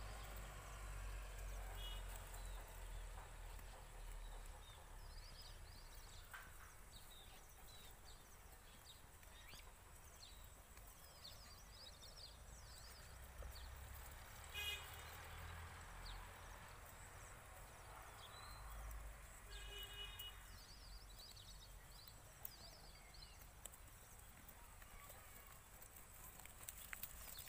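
Near silence: faint outdoor ambience with a low rumble and scattered faint high chirps. Brief tonal calls come about 15 s in and again about 20 s in.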